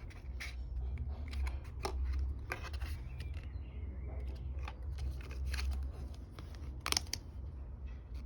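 Stiff card flaps and pages of a lift-the-flap children's book being opened and handled: a run of light clicks and rustles, with a sharper snap about seven seconds in, over a low steady rumble.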